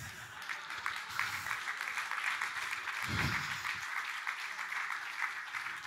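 Audience applauding: a steady patter of many hands clapping, with a short vocal sound about three seconds in.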